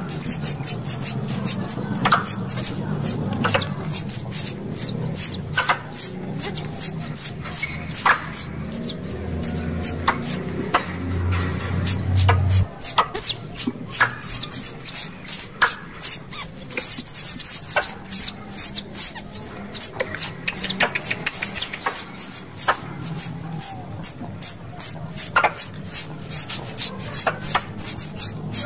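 Squirrel (tupai) calls: rapid, high-pitched chattering chirps in long series, played as a lure call to draw pest squirrels. A low hum underneath stops abruptly about halfway through.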